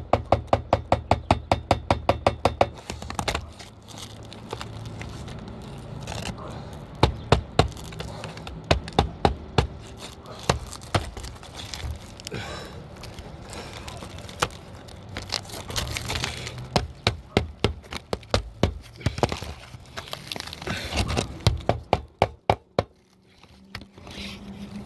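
Asphalt roof shingles being lifted and worked with a hammer: a quick run of sharp taps, about seven a second, in the first three seconds, then scattered knocks, cracks and crinkling as the stiff top shingles tear and crease.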